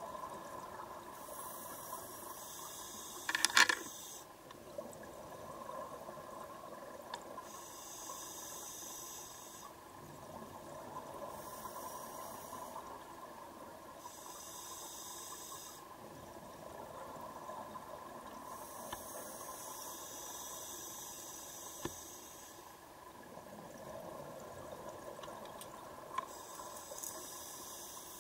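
Scuba regulator breathing underwater: six bursts of bubbling exhalation a few seconds apart, with quieter hiss between them. A short loud clatter about three and a half seconds in.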